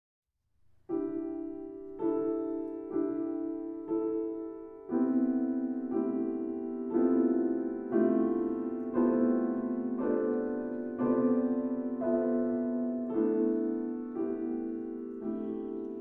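Background music: slow piano chords, one struck about every second from about a second in, each fading before the next.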